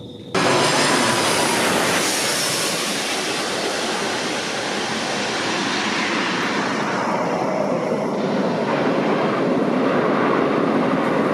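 Jet engines of a twin-engine airliner landing: a loud, steady rush of engine noise that starts abruptly near the beginning, with a faint high whine falling in pitch over the first few seconds.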